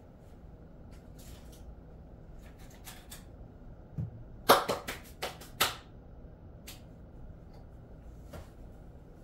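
Quiet room with a few faint rustles, then a low thump about four seconds in followed by a quick run of five or so short, sharp rustling clicks, the first the loudest.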